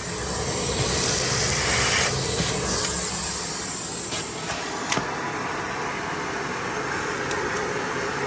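Miele Blizzard CX1 bagless canister vacuum cleaner running, a steady, kind of loud motor whine and rushing air. The rush of air swells briefly about a second in, and there is a single sharp click about five seconds in.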